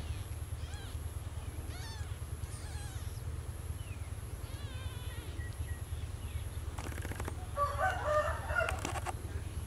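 A rooster crowing in the background near the end, a rough call lasting about a second and a half, with small birds chirping faintly earlier, over a steady low hum.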